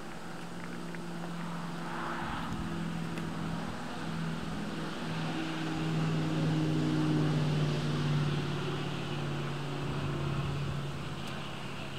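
A motor engine running steadily as a low, droning hum, growing louder toward the middle and easing off again.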